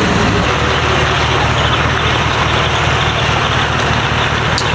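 Lifted Chevy Silverado pickup's engine running at low speed as the truck drives past and pulls into a parking space, with a steady low hum that drops slightly in pitch about half a second in.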